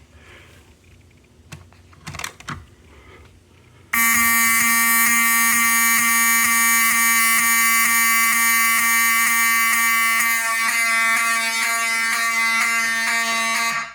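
Wheelock mechanical fire alarm horns sounding on continuous: a loud, steady, buzzy horn tone that starts suddenly about four seconds in and cuts off sharply near the end. It is the fire alarm system in alarm from a smoke detector test. A few faint clicks come before it.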